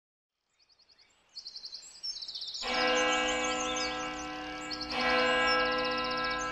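Birds chirping and trilling. About two and a half seconds in, a loud sustained musical chord comes in and is struck again about two seconds later, with the birdsong going on over it.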